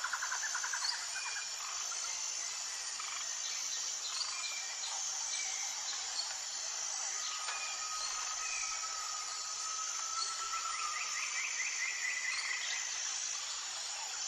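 Tropical forest ambience: a steady high chorus of insects under bird calls and pulsed trills. One long level whistle runs from about halfway through, and a rapid trill comes in near the end.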